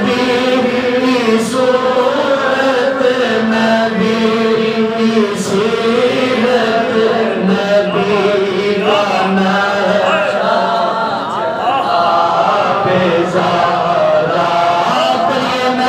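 A man chanting a devotional manqabat in long, held, melismatic notes, sung into a microphone without instruments.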